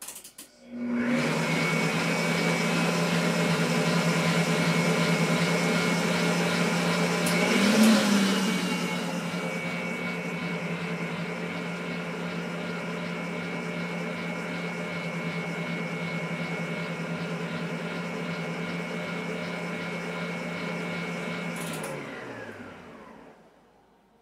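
Red tilt-head stand mixer's electric motor running steadily, mixing key lime pie filling. It starts about a second in, surges briefly louder about eight seconds in, then runs a little quieter, and near the end it is switched off and winds down with falling pitch.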